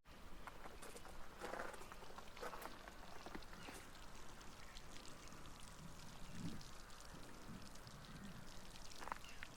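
Faint, irregular crunching and crackling of footsteps on gravel, with a few louder crunches about a second and a half in, at two and a half seconds and near the end.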